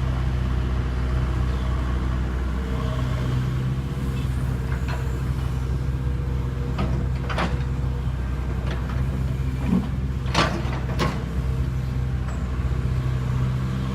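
Kobelco SK75UR excavator's diesel engine running steadily under work, with a few short sharp knocks in the second half, two of them close together.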